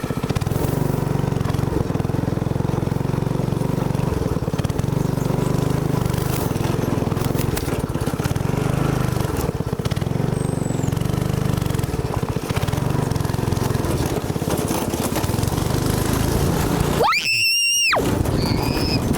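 Small go-kart engine running steadily with a low drone. Near the end, a brief high-pitched squeal lasts about a second.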